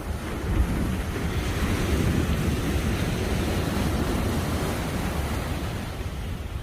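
Sea waves surging and washing ashore in one swell that builds about a second in and eases off near the end, with wind rumbling on the microphone.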